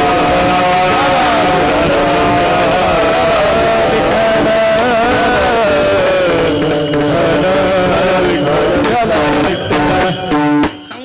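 Kirtan accompaniment music: a devotional melody, sung and held with gentle bends, over a steady percussion beat. It stops abruptly about ten and a half seconds in.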